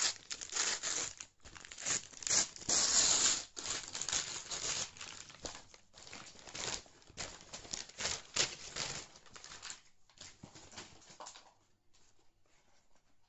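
Plastic courier bag being torn open and crumpled by hand: a long run of ripping and rustling, loudest a few seconds in, dying down to faint handling near the end.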